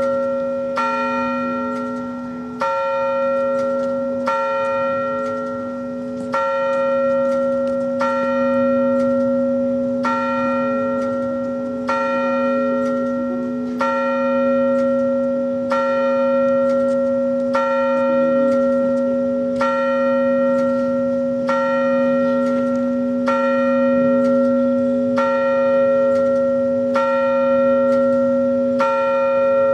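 A single large bell rung steadily, about one stroke a second with louder and softer strokes alternating, its ring carrying on between strokes.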